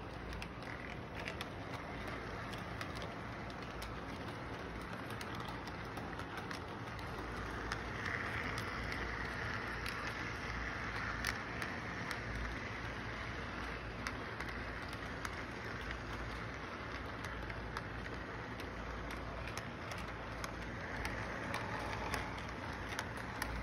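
Model train running round its track: a steady whir and rumble of the cars rolling, with frequent small clicks from the wheels on the track. It grows louder twice as cars pass close.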